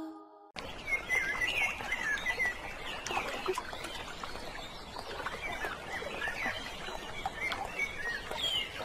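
Forest ambience: many small birds chirping and calling over a steady soft hiss, cutting in suddenly about half a second in.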